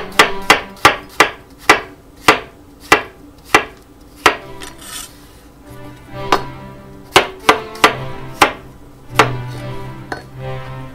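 Chef's knife slicing mushrooms on a wooden cutting board, each cut ending in a sharp knock on the board: a quick run of about nine strikes, a short pause, then about six more. Background music plays throughout.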